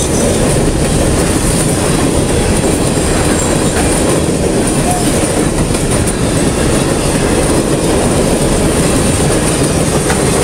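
Freight train cars rolling past at close range: a loud, steady rumble and rattle of steel wheels on the rails.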